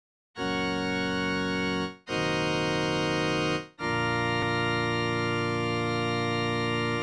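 Organ playing three held chords, the last and longest sustained for over three seconds before cutting off.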